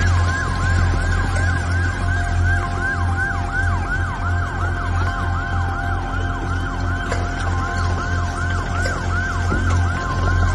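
Emergency vehicle siren on a fast yelp, its pitch swooping up and down about four times a second without a break, over a steady low hum.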